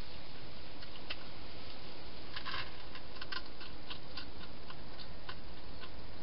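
A hedgehog chewing food at a bowl: irregular small clicks and crunches, with a quick flurry about two and a half seconds in, over a steady hiss.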